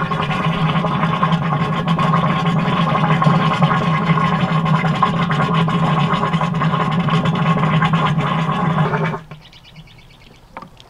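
A Valterra Sewer Solution, powered by garden-hose water pressure, running as it drains the black-tank simulator, with water rushing and a steady droning tone. It stops suddenly about nine seconds in, and a small click follows near the end.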